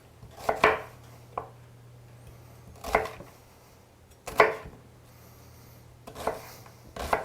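Chef's knife dicing a peeled brown onion on a chopping board: separate chops, irregular, about one every second or so.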